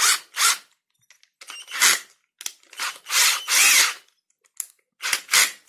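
Swazer 14.4 V cordless drill driver running in about six short bursts, the longest about a second, while its keyless chuck is tightened onto an extension bit holder.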